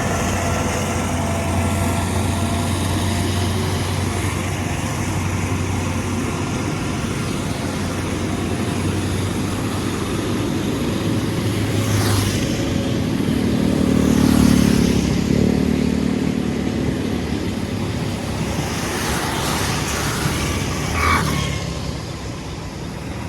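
Diesel passenger train pulling away: the steady low drone of an Alsthom diesel-electric locomotive's Caterpillar engine, with the rumble of the train rolling on the track, swelling louder a little past halfway.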